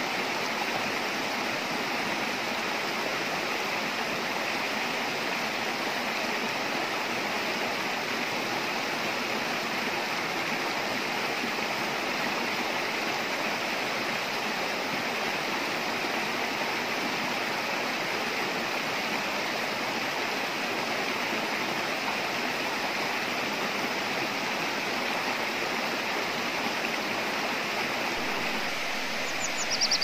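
Small rocky stream rushing steadily over stones and little cascades. Near the end a bird starts calling in quick, repeated falling chirps.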